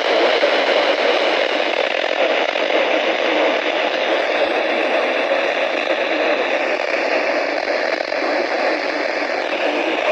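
Radio static: a steady hiss with light crackle from a receiver's speaker, with no programme audible.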